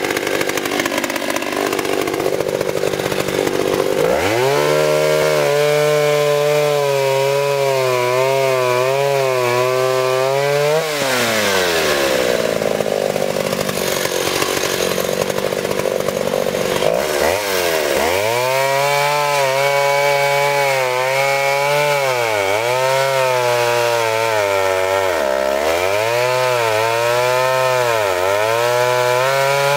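Two-stroke chainsaw cutting through fallen tree limbs. It revs up hard about four seconds in, and its pitch dips again and again as the chain bites into the wood. It drops back about eleven seconds in, then revs up and cuts again from around eighteen seconds, with deep dips where the saw bogs in the cut.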